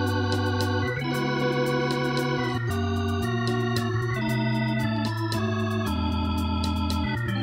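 Instrumental band passage: an electronic keyboard with an organ sound holds sustained chords over an electric bass line that moves to a new note about once a second, with light percussion ticks keeping time.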